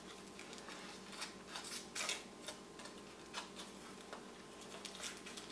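Foil wrapper on a small chocolate egg crinkling and crackling in short, irregular bits as it is peeled off by hand.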